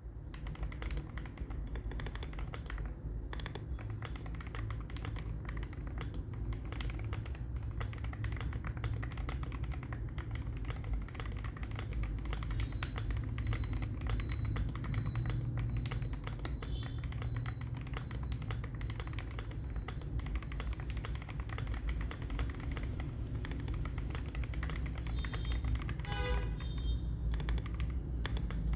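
Continuous fast typing on an Akko ACR Pro Alice Plus mechanical keyboard with a polycarbonate plate, Akko Crystal switches and ASA-profile keycaps: a dense, unbroken stream of keystroke clacks.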